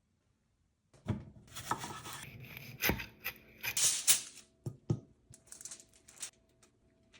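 Irregular rustling, tearing and clicking of objects being handled, with several sharp knocks.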